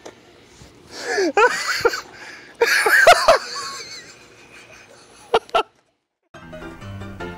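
Two bursts of high, wavering vocal cries, the second starting about a second and a half after the first, then two short sharp sounds. Near the end the sound cuts out and music begins.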